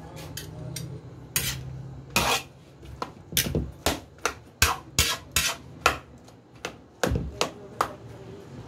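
Metal ladle knocking and scraping against a metal wok as the chunks of fruit flesh in it are stirred and pressed: a run of irregular sharp clinks, coming thickest after about three seconds.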